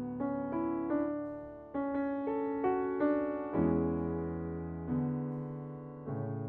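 Fazioli concert grand piano played: an unhurried passage of struck single notes and chords, each ringing and decaying, with deeper bass chords coming in about three and a half seconds in.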